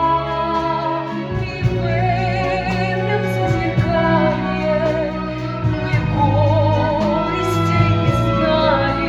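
A woman singing a musical-theatre song, holding long notes with a wide vibrato over instrumental accompaniment.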